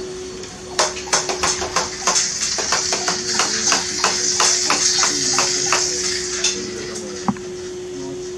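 Hand trigger spray bottle squeezed rapidly, about three or four pumps a second, each a click with a hiss of spray; the pumping stops about six and a half seconds in. A single knock follows near the end, over a steady low hum.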